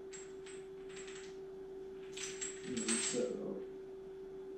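Steel lifting chains clinking against each other as they are lifted to be weighed on a suitcase scale: a few sharp clinks in the first second, then a longer rattle and jangle of links about two to three and a half seconds in.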